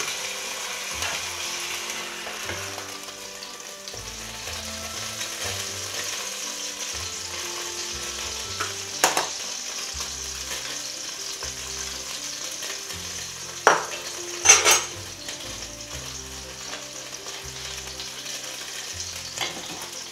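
Steady sizzling of food frying in a pan on the stove, with a few sharp clacks of kitchen utensils: once about nine seconds in and twice close together around fourteen seconds.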